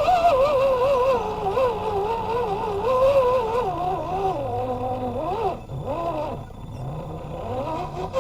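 Electric motor and geared drivetrain of a 1/10-scale RC 4x4 truck whining as it crawls, the pitch wavering up and down with the throttle. It drops lower and briefly eases off past the middle, then picks up again with short rising whines.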